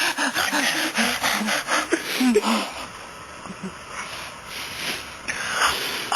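A person's wheezing, gasping vocal sounds in quick repeated pulses for about two and a half seconds, then fading to fainter breathy noise.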